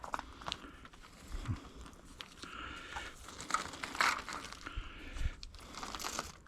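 Scrap being handled by hand: irregular rustling and crinkling with scattered sharp clicks and knocks.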